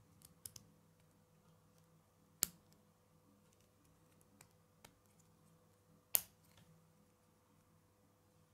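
Plastic K'nex connectors clicking and snapping onto K'nex rods as they are pressed together by hand: a few light clicks, then two sharp snaps a few seconds apart, with softer clicks between.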